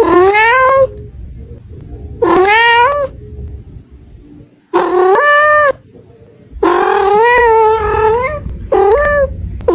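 A cat meowing loudly five times, about two seconds apart, each meow rising in pitch; the fourth is the longest.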